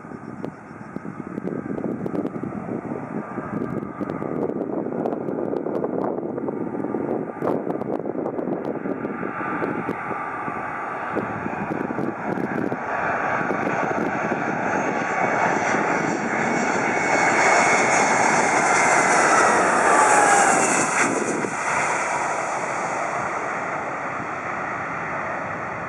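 Airbus A319-132's IAE V2500 turbofan engines on approach, a steady jet noise that grows louder as the airliner nears. Near the loudest point it carries a whine that falls in pitch as the aircraft passes, then the noise eases off.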